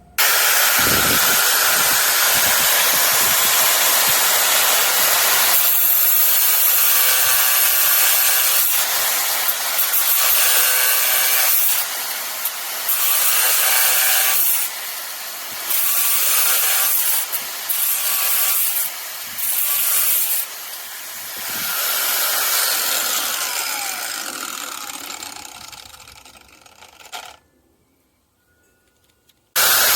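SEESII cordless grinder's spinning abrasive disc grinding against metal: a loud, hissing noise in surges as the pressure comes and goes. It fades away as the disc winds down. After a few seconds of quiet it starts again abruptly just before the end.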